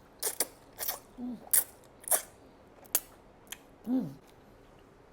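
Close-miked eating sounds: a string of sharp, crisp mouth and utensil clicks at irregular intervals, with two short hummed 'mm' sounds, about a second in and about four seconds in.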